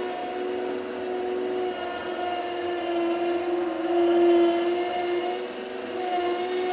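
Electric winch motor pulling a car shell in by its cable with a steady whine. About three seconds in it grows louder and dips in pitch for a second or so, then picks up again.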